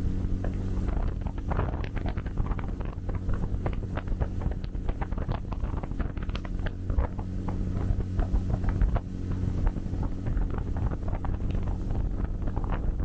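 Motorboat engine running steadily under way, a low even hum, with wind buffeting the microphone throughout.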